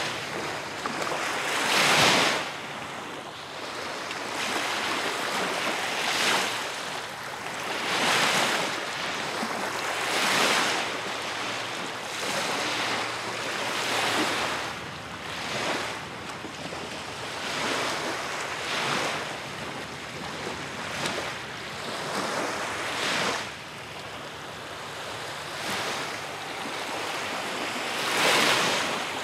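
Lake waves washing in, swelling and easing every few seconds, with some wind.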